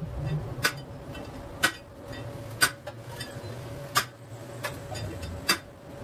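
Sharp clicks of a screwdriver working on the metal screws and housing of a ceiling fan's motor, coming about once a second at uneven intervals over a low steady hum.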